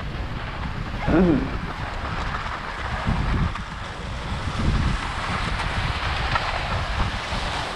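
Wind buffeting the microphone and skis scraping and hissing over hard, patchy snow while skiing downhill, a steady rumbling noise. A short pitched sound cuts in briefly about a second in.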